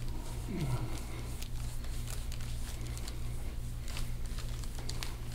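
Faint squishing and rubbing of a forearm and elbow pressing into an oiled back during deep-tissue massage, with scattered small clicks over a steady low hum. A short falling tone sounds about half a second in.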